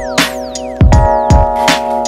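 Background music with an electronic beat: held synth chords over kick drum and clap hits, with falling synth sweeps.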